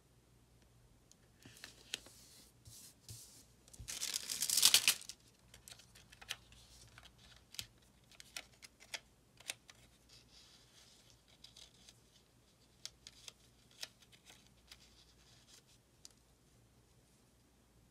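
Paper sticker being peeled off its backing sheet, a tearing rasp about four seconds in, the loudest sound, with lighter paper rustles before it. Then a scatter of small clicks and taps as stickers are handled and pressed onto the planner page.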